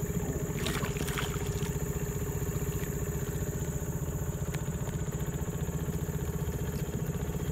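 A boat's motor running steadily with an even low pulse and hum, with a few short clicks and rattles about a second in.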